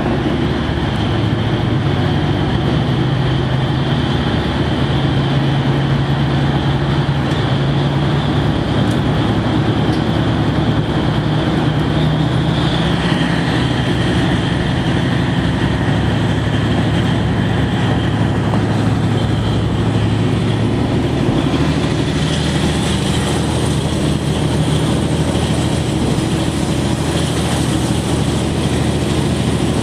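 Diesel engine of a KiHa 40 series railcar running steadily, heard from inside the passenger cabin as a constant low drone.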